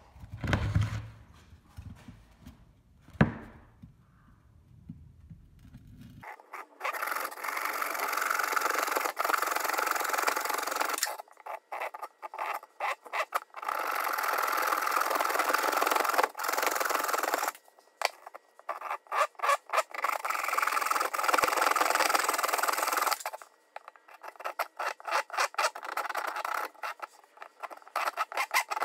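Hand saw cutting the corners off a wooden block in long runs of strokes, starting about six seconds in, with quicker short strokes near the end. Before the sawing, a couple of knocks as the block is handled on the bench.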